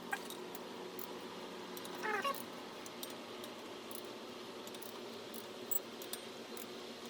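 A cat's short, wavering meow about two seconds in, over a steady low hum, with a few light clicks scattered through.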